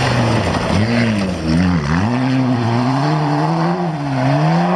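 Nissan Bluebird rally car engine pulling hard through a gravel corner. Its pitch drops sharply and climbs again about one and a half seconds in, and dips again near the end as the driver comes off and back on the throttle, with gravel hissing under the tyres.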